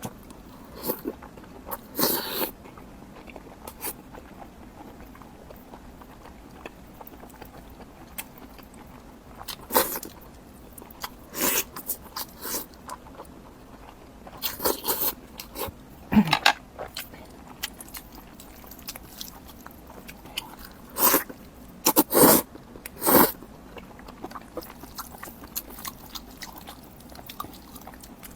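Close-up eating sounds: irregular crunching bites and chewing, some in quick clusters, with pauses between.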